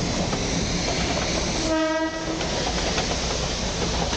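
Darjeeling Himalayan Railway narrow-gauge toy train, hauled by a diesel locomotive, running past with a steady rumble. Its horn sounds once, briefly, about two seconds in.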